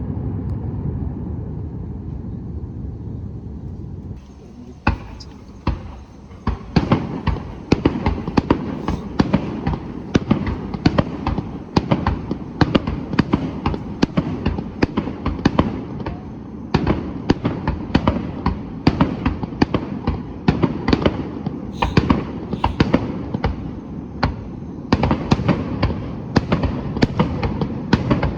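Aerial fireworks going off: a low rumble for the first few seconds, then from about five seconds in a rapid barrage of sharp bangs and cracks, several a second, that keeps up to the end.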